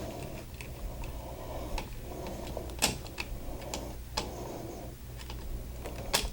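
Scattered light clicks and taps of hand tools and copper wire against a plastic wall switch as a wire loop is hooked onto its screw terminal, with louder clicks about three seconds in, about four seconds in and near the end.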